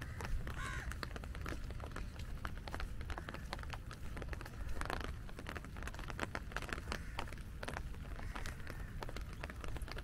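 Raindrops tapping on an umbrella, with crows cawing a few times, about half a second in, around the middle and near the end, over a steady low rumble.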